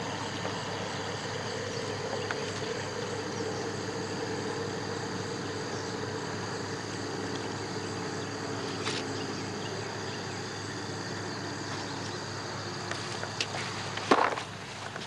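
Steady insect chorus, a continuous high-pitched trilling over a constant hiss. A single sharp knock about a second before the end.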